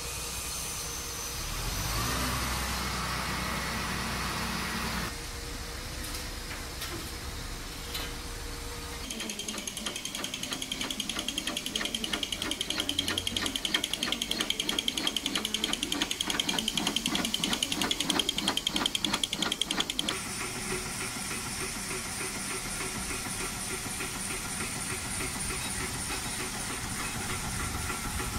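Portable line boring machines running: motor hum and the boring bar turning in steel bores, the sound changing at each of several cuts. Through the middle stretch it becomes a fast, even pulsing.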